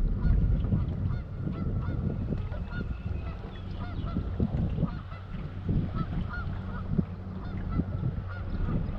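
Geese honking over and over in many short calls. Wind buffets the microphone beneath them in gusts, over a steady low hum.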